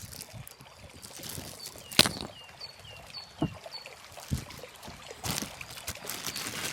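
Water sloshing and trickling, with a few sharp knocks, the loudest about two seconds in. A short high falling chirp repeats about six times near the middle.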